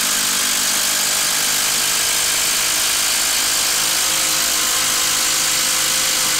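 Ryobi P239 brushless impact driver hammering at a steady full-trigger pace, driving a 10-inch TimberLOK screw down into a wooden stump.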